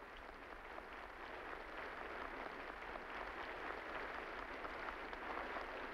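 Audience applauding, a dense patter of many hands clapping that swells over the first couple of seconds and then holds steady.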